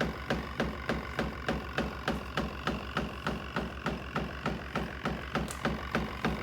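Small portable twin-tub washing machine running: a steady motor hum under an even, rapid clicking of about three clicks a second.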